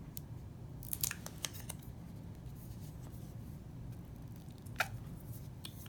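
Fingernails picking and scratching at the protective plastic film on a smartphone, trying to lift its edge: a quick cluster of small clicks about a second in and one sharper click near the end, faint against room hum.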